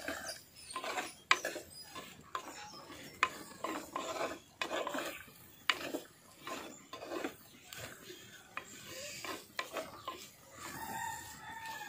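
A ladle stirring and scraping thick chopped rose-apple pickle in a clay pot, in short irregular strokes.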